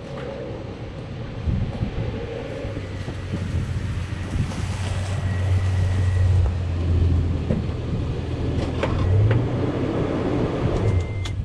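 Steady road and wind noise of a truck being driven, with a low drone underneath. A few sharp clicks come near the end.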